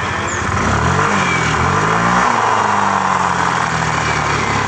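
Yamaha Lexi scooter engine and CVT revving up when the throttle is opened about a second in, then falling back toward idle after about two seconds. Underneath is a rough growl ('ngorok', 'kasar') that the mechanic traces to inside the rear of the CVT and not to loose plastic covers.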